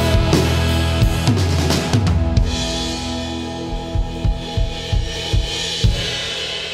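Drum kit with Zildjian cymbals played along to the closing bars of a rock song. The cymbal wash and backing fade away, and near the end about six separate drum hits ring out.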